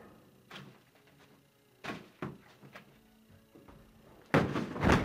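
Scattered knocks and thumps from a person hopping like a kangaroo beside a table, getting louder and denser about four seconds in as the table is bumped and a plastic water bottle is knocked over.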